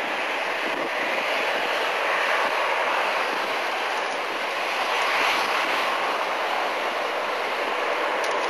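Airbus A321-112 airliner's CFM56 turbofan engines running at idle thrust as it taxis past, a steady rushing noise that swells slightly about five seconds in.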